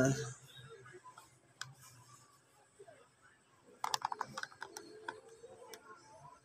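Faint scattered light clicks and taps, with a quick run of about eight clicks around four seconds in.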